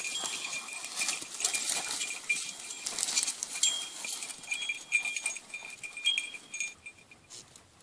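Bells on grazing sheep and goats clanking and tinkling, many small ringing notes overlapping, fading away over the last second or so.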